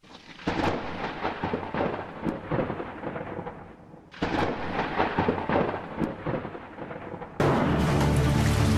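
Two peals of thunder, each opening with a sharp crackle and rolling away over a few seconds. A second from the end, steady rain and a sustained synth chord begin together.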